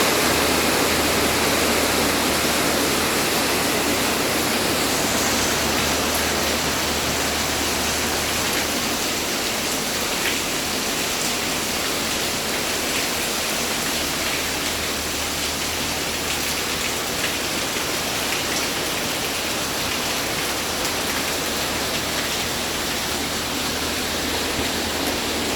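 Rain falling steadily, with water pouring and running off in a continuous rush.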